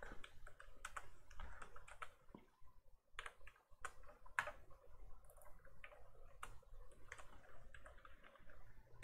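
Computer keyboard typing: irregular key clicks with short pauses, including a brief lull about three seconds in, as a terminal command is entered.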